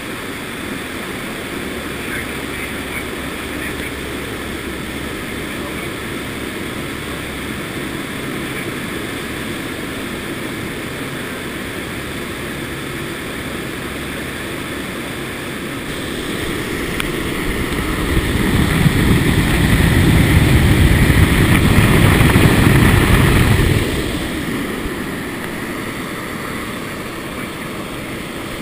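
C-130 Hercules turboprops droning steadily, mixed with wind rushing through the open rear cargo ramp in flight. Past the middle the rush swells much louder for several seconds, then settles back to the steady drone.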